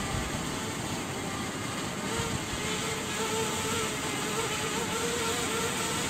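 DJI Mavic Mini quadcopter hovering a few metres away, its propellers giving a buzzing whine whose pitch wavers, clearer from about two seconds in, over a steady rushing noise.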